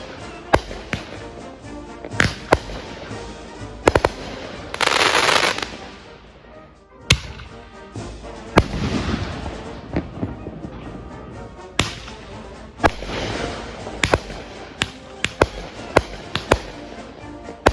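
Consumer fireworks going off: a long string of sharp bangs throughout, with a loud hissing burst lasting just under a second about five seconds in.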